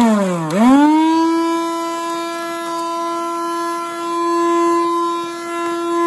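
Black & Decker lithium cordless handheld vacuum switched on: its motor whine dips, then climbs within the first second and settles into a steady, loud whine with a clear pitch.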